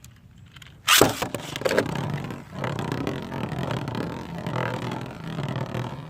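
A beyblade launched with a sharp rip about a second in, then spinning and rattling continuously in the stadium.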